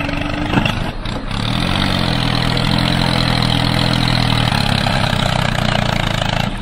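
Tractor engine sound effect, rising in pitch as it revs up about a second and a half in, then running steadily under load.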